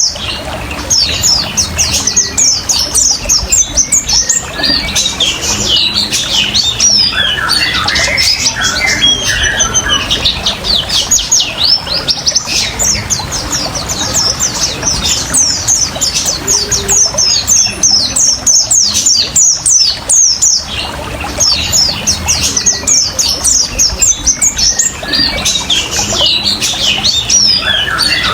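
White-eye (pleci) singing its fast 'ngriwik' song, a dense stream of quick, high, falling chirps with brief lulls, over the steady trickle of running water.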